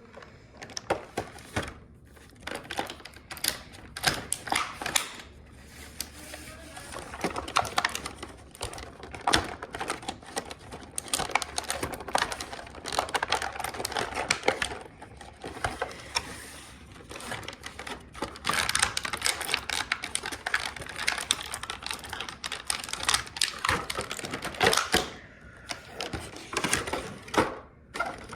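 Hands opening toy packaging: plastic and cardboard crinkling, crackling and clicking in a dense, irregular run.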